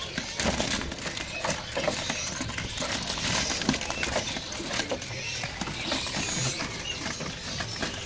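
Bird-market ambience: scattered short chirps of caged songbirds mixed with many small clicks and rustles of birds moving about in their cages.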